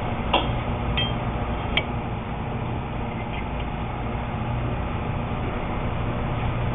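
Steady background hum of machinery or ventilation, with three sharp metallic clinks in the first two seconds and two fainter ticks a little after three seconds, as steel tool parts are handled.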